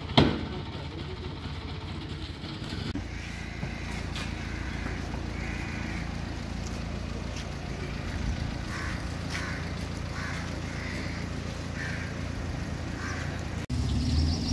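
Street traffic noise: a steady low rumble of vehicle engines, with one sharp knock right at the start.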